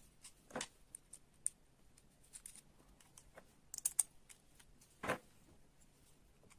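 Irregular light clicks and taps of small kit parts being handled and fitted while a model excavator is assembled, with a quick cluster of clicks around the middle and two slightly fuller knocks.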